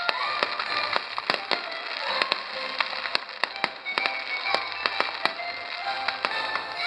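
Fireworks going off in a rapid, irregular string of sharp bangs and crackles, several a second, with the show's music playing underneath.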